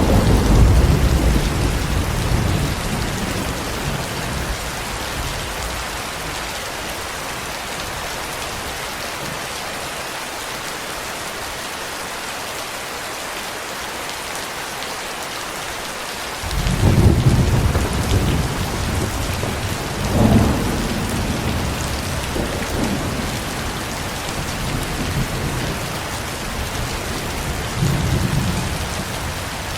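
Steady rain with rolling thunder: a rumble dies away over the first few seconds, thunder breaks in suddenly about halfway through, a sharper clap follows a few seconds later, and a smaller rumble comes near the end.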